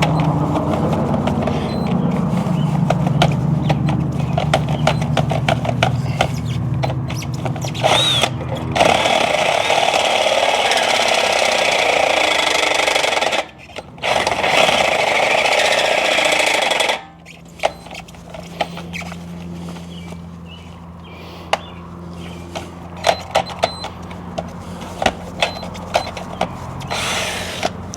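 Cordless power tool running for most of the first seventeen seconds, stronger from about nine seconds in with one brief stop, then cutting out and leaving light clicks and taps. Its battery is nearly flat.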